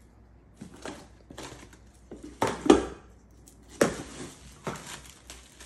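Hard-anodized cookware and its cardboard packaging knocking and clattering as pieces are lifted out of the box: about six separate knocks, the loudest about two and a half seconds in.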